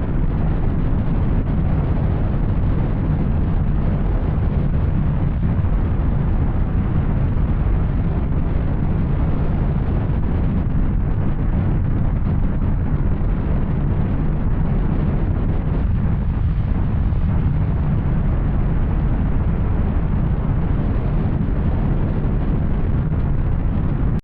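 Yamaha Tracer 900's three-cylinder engine running at a steady pace through an Arrow aftermarket exhaust while riding, with a rushing noise over it.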